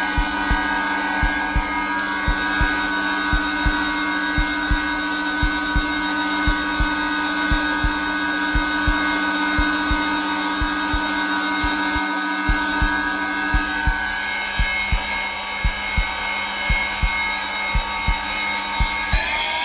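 Zelmer vacuum cleaner running steadily on its lowest setting, a continuous motor whine and rush of air, with a heartbeat thumping in a regular low pulse over it.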